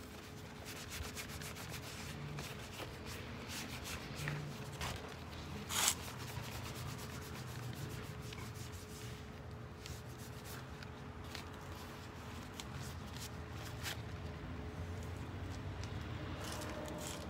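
Cloth rubbing over ficus leaves, a dry rubbing and rustling with many scattered light clicks and one sharper tap about six seconds in. A faint steady hum lies underneath.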